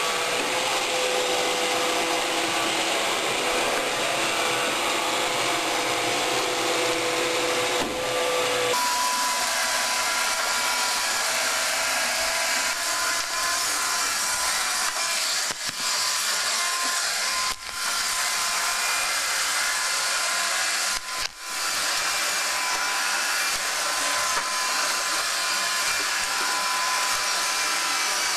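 iRobot Roomba 530 robot vacuum running, a steady whir of its vacuum motor and brushes. About nine seconds in, the sound changes abruptly to a higher hum with less low end, and it briefly drops out a few times later on.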